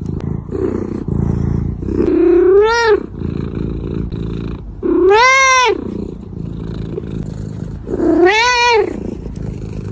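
A cat meows three times, about three seconds apart, each call rising and then falling in pitch, over a steady low purr.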